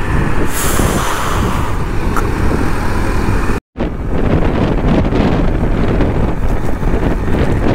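Wind rush and buffeting on the microphone of a moving motorcycle, with engine and road noise underneath. It cuts out completely for a split second a little before halfway through.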